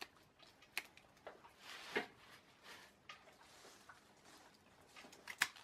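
Hand pruning shears snipping rose stems: a few sharp clicks, one about two seconds in and the loudest pair near the end, with faint handling rustle between the cuts.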